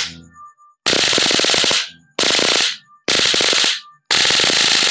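Electric-shock flashlight (stun-gun torch) firing its high-voltage spark, a loud rapid electric crackle of arcing. It comes in repeated bursts of about a second each with short pauses between.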